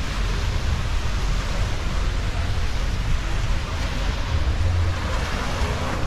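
Steady wash of small waves breaking on the shore, with wind rumbling and buffeting on the microphone.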